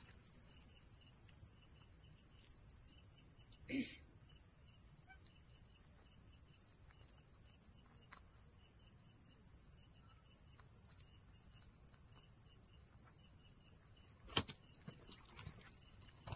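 Night insects chirring steadily in two high-pitched, finely pulsing bands; the lower band stops shortly before the end. Two faint knocks are heard, one about four seconds in and one near the end.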